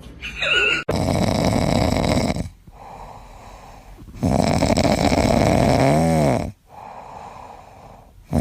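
Loud snoring: long, rough snores about every three and a half seconds, with quieter breaths between them.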